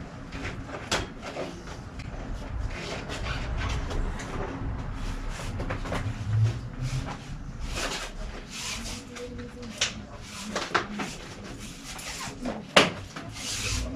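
Handling noises of bicycle repair work: scattered clicks, knocks and rustling of tools and parts against the bike and bench, with one sharp knock about a second before the end.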